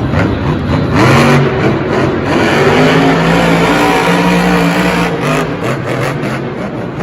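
Monster truck engine revving hard, its pitch climbing about a second in and again near two seconds, then holding at high revs.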